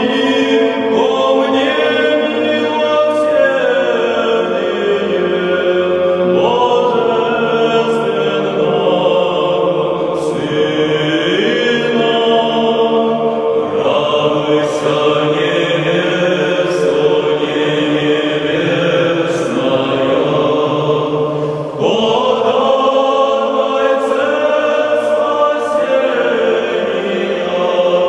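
Choir singing a slow chant in long held notes, with a short breath between phrases about three quarters of the way through.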